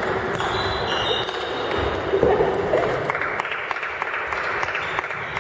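Table tennis balls clicking off tables and bats, an irregular scattering of sharp knocks, with a background murmur of voices.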